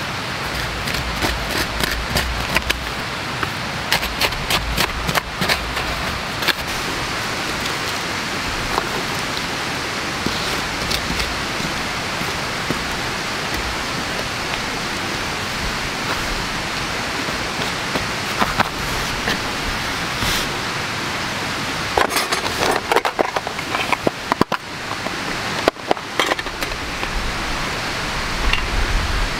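A small hand scoop digging into soil and leaf litter: scattered scrapes and crunches over a steady rushing background noise. Louder clicks and clatters a little before the end, as a plastic tool box and a metal tin are handled.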